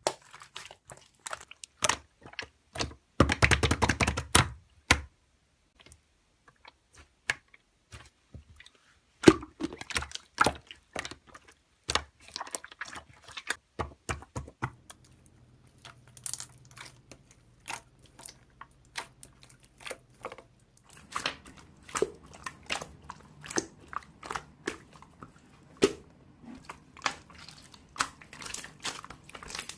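Close handling noises: irregular sharp clicks and taps with crinkling, and a dense rustling burst about three seconds in.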